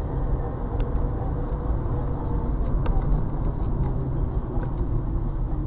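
A car driving, its engine and tyre noise heard from inside the cabin as a steady low rumble, with a few faint ticks.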